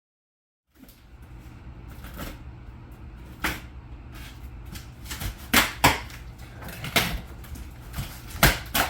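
Several sharp knocks and clicks of objects being handled, over a low steady hum.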